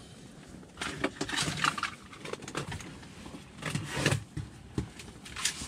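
Scattered rustling and light knocks of close handling, in three short bouts.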